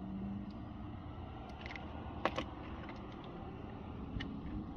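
A few faint, scattered clicks of a tool and hands working at the belt tensioner bolt in the engine bay, over a steady low background hum.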